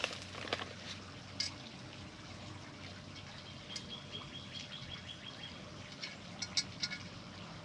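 A few light, sharp clicks of small decorative stones being handled and set among potted succulents, in a cluster near the start and again near the end. In the middle a bird gives a quick, high, pulsed trill for about two seconds.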